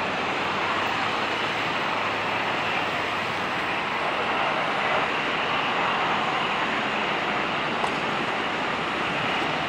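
Jet engine noise of a Boeing 777-200ER with Rolls-Royce Trent engines landing close by: a steady rush as the airliner passes low and touches down, swelling slightly about halfway through.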